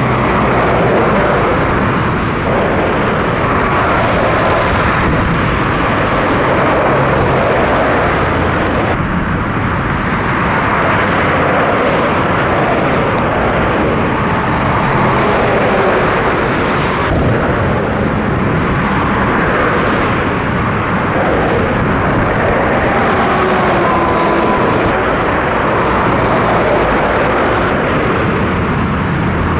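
Steady noise of heavy motorway traffic: trucks and cars passing close by, with tyre and engine noise and a few vehicles' pitch sliding down as they go past.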